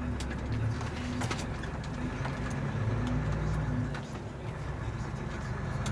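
Truck diesel engine running low and steady inside the tractor cab while the truck crawls along. Light clicks and knocks come at irregular intervals over it.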